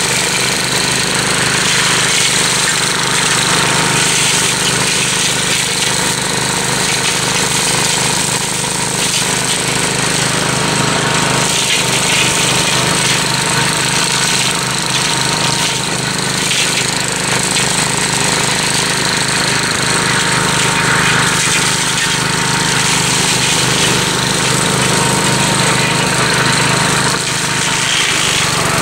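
Gravely Commercial 12 walk-behind tractor running steadily under load with its brush hog cutting through a dense pricker bush. A constant engine drone carries a steady high whine.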